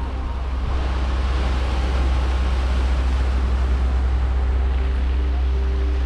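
Sea waves breaking and washing over a pebble and rock shore, with a swell of surf about a second in, over a steady deep rumble.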